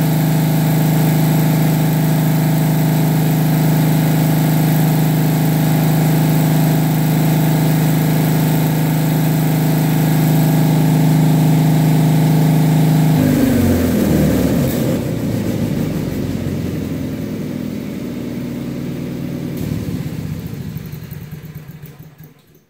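An engine running at a steady speed, then slowing and winding down about two-thirds of the way through, its sound fading away near the end.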